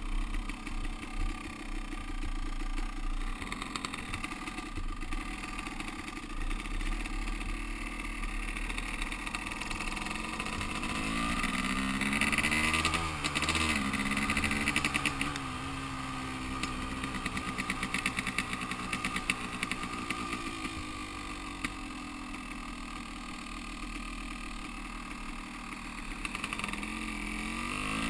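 Yamaha YZ250 two-stroke dirt bike engine running under way, heard from the rider's helmet. About eleven seconds in it revs up with rising pitch through a couple of shifts and gets louder, then settles back to a steady cruise. It revs up again near the end.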